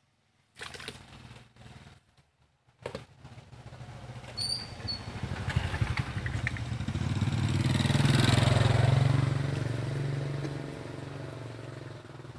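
Small motorbike engine running as the bike comes up the lane and passes close by, growing louder to a peak about eight seconds in, then fading.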